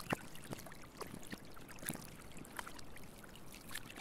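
Deep-sea hydrothermal vent ambience: a steady watery hiss with irregular small clicks and pops.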